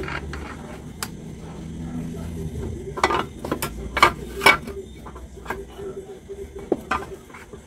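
Metal clinks and knocks as the rear swing arm and a spacer are worked onto the rear axle stud of a Honda Click 125 scooter, with a quick run of sharp clinks about three to four and a half seconds in.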